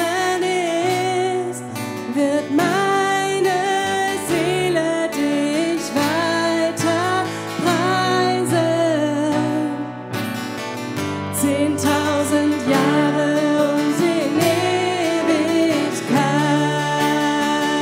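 A woman singing a song into a microphone over guitar accompaniment, her melody wavering and held on long notes.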